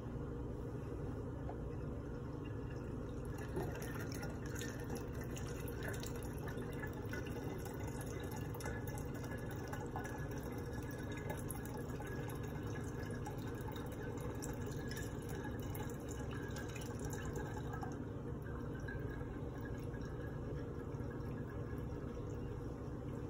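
Cooled imperial stout wort trickling and dripping through a mesh strainer and plastic funnel into a one-gallon glass jug, with fine crackly drips over a steady low hum.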